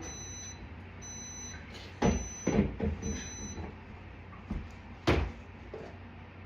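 Microwave oven beeping four times, about a second apart, as its heating cycle finishes, mixed with a few knocks and thumps of handling, the loudest about five seconds in.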